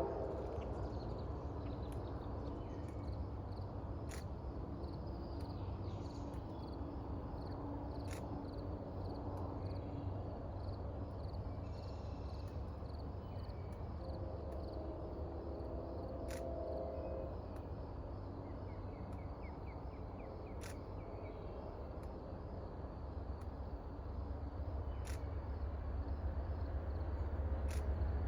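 Quiet outdoor ambience: a steady low rumble, growing a little near the end, with faint, evenly pulsing insect chirping and a few faint sharp clicks.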